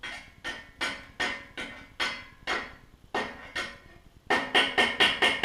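Stick-welding electrode tapped again and again against steel to strike an arc from an Amico SF-200A inverter welder set to 160 A on 120 V, about two taps a second, then quicker taps near the end. The arc does not catch: the welder lacks the power for the rod on this supply.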